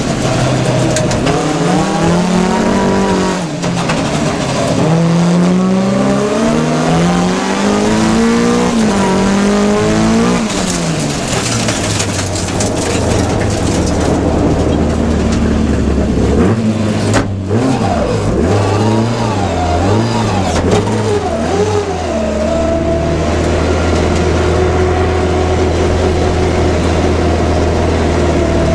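Rallycross race car engine under hard acceleration. Its pitch rises and drops back with each gearchange for about ten seconds, then settles into a steady low drone with a short unsteady patch partway through.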